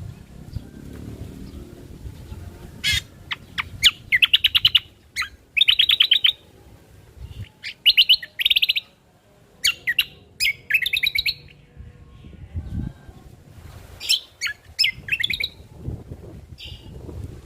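Cucak kombo (kecial kombo) singing: a run of short phrases of rapid trilled notes, mixed with sharp single chirps, that keep coming for most of the stretch.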